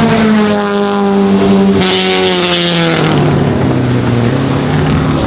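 BMW 2002 racecar's naturally aspirated four-cylinder engine running loud, its pitch falling gradually for about three seconds, then holding a lower, steady note.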